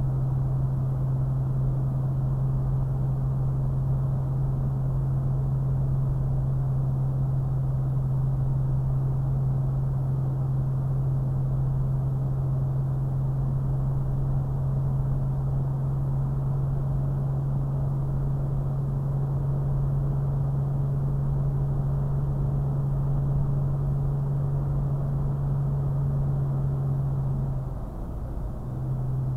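Toyota FJ Cruiser's V6 engine droning steadily at a cruise of about 45 mph, with tyre and road noise, heard from inside the cabin. The drone dips briefly near the end, then comes back.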